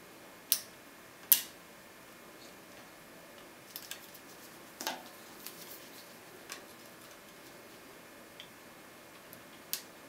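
Sharp metallic clicks and lighter ticks from a pick and tension wrench working a six-pin Winkhaus Titan cylinder. The two loudest clicks come about half a second and a second and a third in, followed by scattered smaller clicks and a sharp one near the end.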